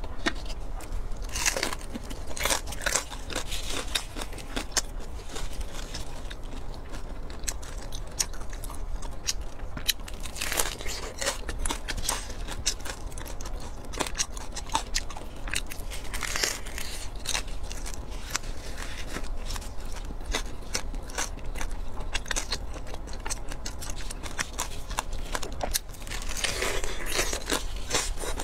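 Close-up crunching bites and chewing of crispy roast pork crackling skin: small crackles throughout, with louder crunches every few seconds, over a steady low hum.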